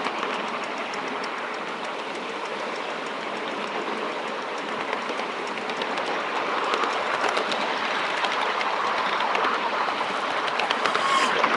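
A 7¼-inch gauge miniature railway train running along the track, heard from the footplate: a steady rumble of wheels on rail with a continual patter of clicks over the rail joints. A short sharp sound comes near the end.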